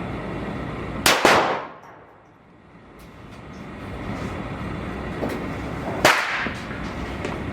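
Two loud shotgun reports about five seconds apart, each with a short ringing tail: a 12-gauge shotgun firing heavy reloaded slugs.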